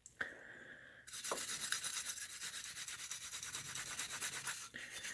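A brush buffing shoe polish on a model locomotive's shell: quick back-and-forth scrubbing strokes that start about a second in and stop near the end.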